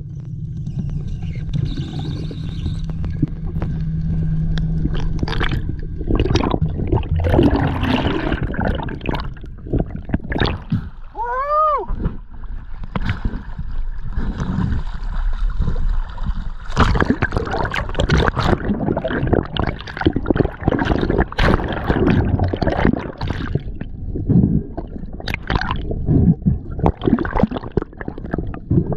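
Seawater sloshing and gurgling around an action camera at the surface and just below it, with irregular splashes and bubbling over a steady low rumble. A short pitched sound rises and falls near the middle.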